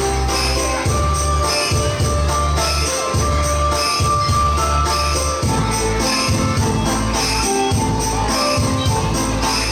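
Dance music with jingling bells marking a steady beat over held melody notes and a bass pulse.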